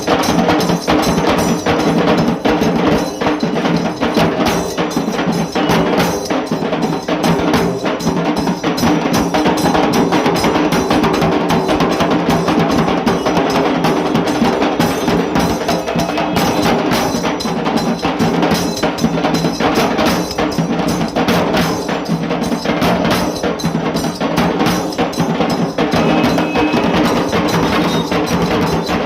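Dhol tasa band playing: dhol and tasa drums beaten hard in a fast, continuous rhythm.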